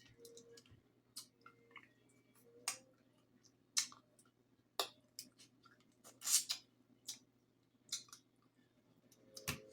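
Lobster tail shell being cracked and pried apart by hand: irregular sharp clicks and crackles.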